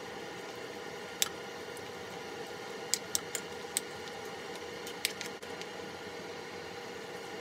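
A wooden spoon clicking against the pot several times while soybean paste is stirred into chopped vegetables, over a steady background hum.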